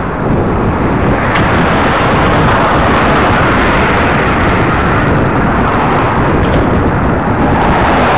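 A car overtaking a bicycle at close quarters, its engine and tyre noise swelling around the middle as it goes past, over a steady rush of wind noise on the bike-mounted camera's microphone.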